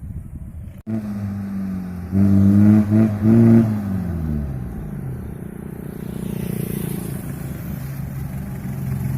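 Mitsubishi L300 engine running through an aftermarket single-funnel, truck-style exhaust: idling, then revved in three quick blips about two seconds in, before the pitch falls back to a steady idle.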